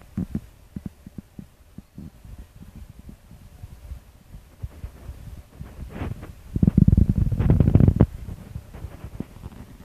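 Handling noise from a handheld camera: irregular low thumps and clicks, with a louder rumbling rub against the microphone from about six and a half to eight seconds in.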